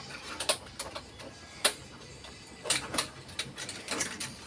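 A string of light clicks and knocks at uneven spacing, about eight in all.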